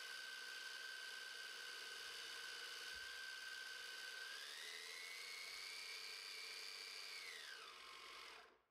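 775 DC motor driving a 3D-printed stacked planetary gearbox, whining steadily as it winds up a load of about 15 kg. The whine rises in pitch about four seconds in, holds, then falls away and stops near the end.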